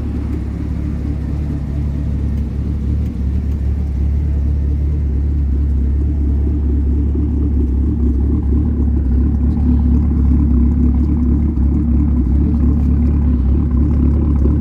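Camaro SS 6.2-litre V8 idling with a steady low rumble, getting slightly louder a few seconds in. The engine has a misfire code traced to worn spark plugs.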